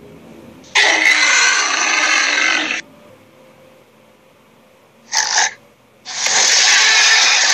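Cartoon Minotaur creature sound effects: two long, harsh, breathy vocalizations, the first starting just under a second in and the second about six seconds in, with a short burst between them.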